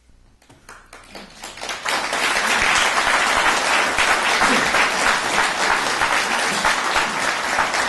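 Audience applauding: a few scattered claps that build within about two seconds into full, steady applause.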